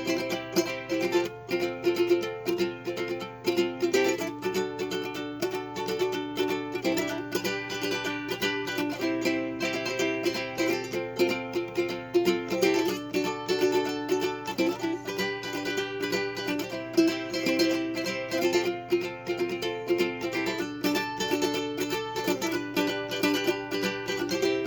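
Concert ukulele strummed in a steady rhythm, changing between G, C, F and D chords every few seconds.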